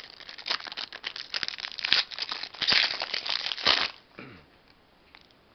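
Wrapper of a baseball-card pack crinkling and crackling as it is torn open by hand, stopping about four seconds in; a few faint clicks follow as the cards are handled.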